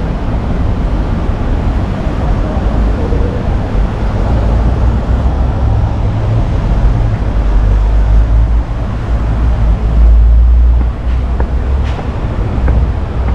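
Outdoor street ambience made up mostly of a steady low rumble, which swells briefly to its loudest about ten seconds in.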